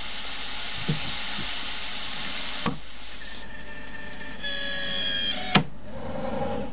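Compressed-air mist coolant spray hissing steadily from a Noga mister nozzle, then cutting off with a sharp click a little under three seconds in. A quieter machine whine with a few steady pitches follows and ends with another click.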